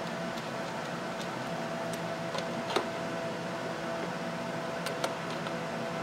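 Steady background hum with a few light metallic clicks and taps, the clearest about three seconds in, as a wrench is worked on a car battery's terminal.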